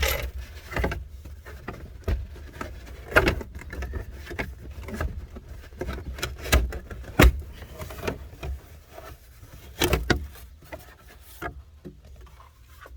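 Irregular knocks, clunks and scraping of interior trim parts being pulled out and handled inside a Jeep Cherokee XJ, with a few sharper knocks spread through.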